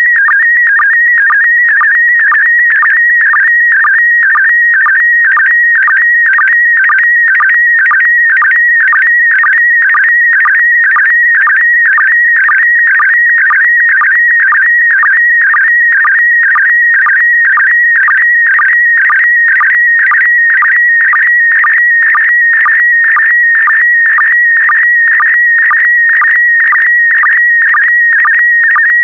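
Slow-scan TV image signal in PD120 mode: a loud, warbling high tone that changes pitch continuously as it carries the picture's brightness, broken by a short lower sync pulse about twice a second as each pair of image lines is sent.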